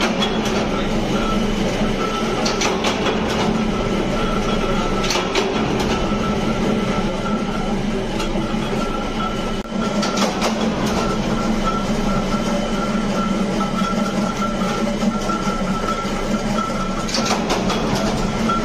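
Workshop machinery running steadily, a constant low drone with a thin high whine over it. Now and then comes a short crackle of plastic bags being handled as rubber bushes are packed.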